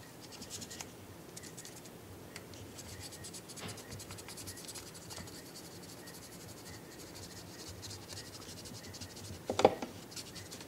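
Fingers scratching and rubbing quickly over a 3D-printed plastic cage, a dense run of fine scraping strokes. Near the end there is one louder knock.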